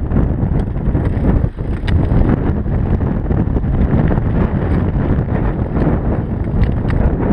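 Wind buffeting the microphone while a mountain bike rolls down a stony gravel track, the tyres crunching and the bike rattling over loose stones with scattered small clicks. The noise is heavy and low, with a brief dip about one and a half seconds in.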